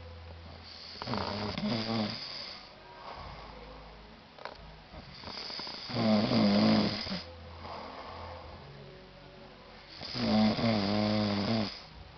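A man snoring: three long snores, each about a second and a half, spaced roughly four to five seconds apart, the second and third the loudest.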